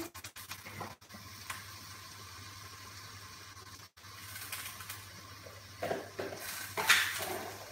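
Quiet kitchen background: a steady low hum and faint hiss, with a few soft knocks in the first second and a brief, louder rush of noise about seven seconds in.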